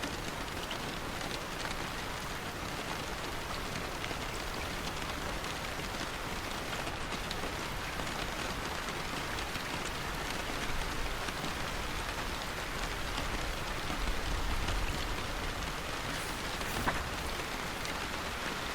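Steady, dense rain falling on a surface, a continuous even hiss. A low rumble swells briefly past the middle, and a single sharp click stands out near the end.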